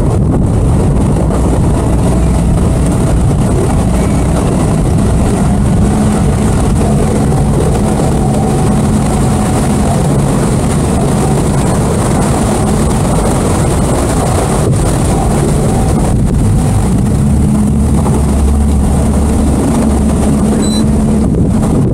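A motorboat under way: its engine runs steadily, with wind rushing over the microphone and water hissing along the hull.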